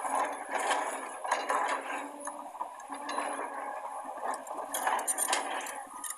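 Excavator at work: repeated metallic clanking and scraping over a steady engine hum.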